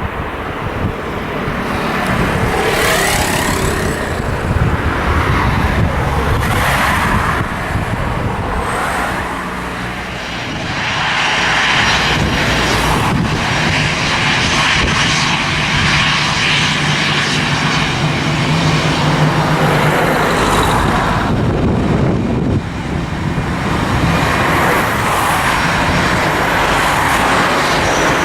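Airliner engines running loudly as an aircraft moves on or near the runway, a continuous rushing noise under a low hum, dipping briefly twice.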